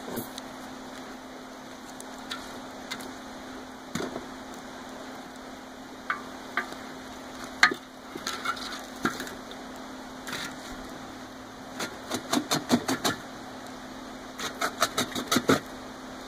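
Burning logs crackling in a metal fire pit: scattered sharp pops and snaps over a steady hiss, with two quick runs of pops, several a second, about twelve and fifteen seconds in.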